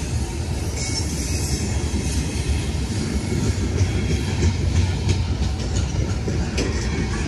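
A CN freight train's cars rolling past: a steady low rumble of steel wheels on rail. From about four seconds in come scattered sharp clicks as the wheels pass over rail joints.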